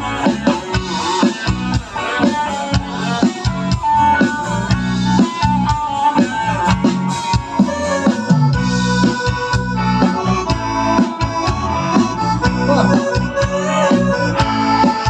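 A band plays an instrumental break between sung verses of a Thai song: a reedy melody instrument in the accordion's range over bass and steady drums.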